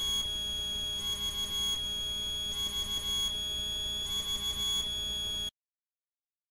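A repeating electronic tone pattern: a steady high tone with short rising sweeps over it, cycling about every second and a half. It cuts off abruptly about five and a half seconds in, leaving silence.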